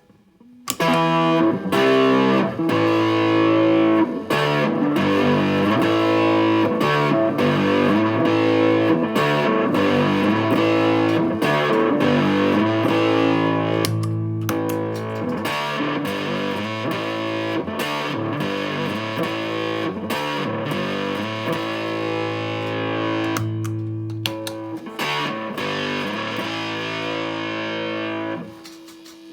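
Electric guitar played through an Astrotone-type fuzz pedal: distorted, sustaining chords and riffs that start about a second in and drop away near the end.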